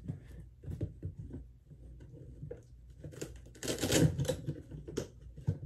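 Parts of a seesaw-clown animatronic prop being handled and fitted onto its base box: scattered light clicks and knocks, with a louder scraping clatter about four seconds in.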